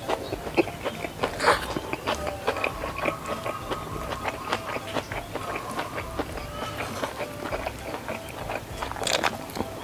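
Close-up chewing and mouth sounds of a person eating sausage stir-fry with rice by hand: wet smacks and clicks, with a couple of louder bites about a second and a half in and near the end, from crunchy half-cooked shallots and chillies in the mouthful.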